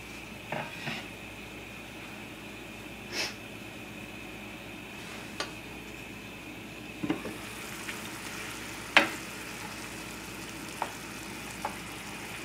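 Chicken, mushrooms and sherry sizzling steadily in a skillet over a raised flame as the sherry reduces, with a few sharp clicks of a utensil against the pan, the loudest about nine seconds in.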